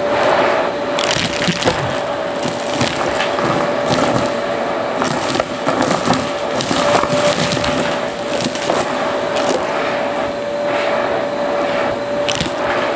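Vacuum cleaner running with a steady whine, its bare hose wand sucking up a pile of stuffing, confetti and small hard pieces from carpet; the hard bits clatter and click as they are pulled up the hose.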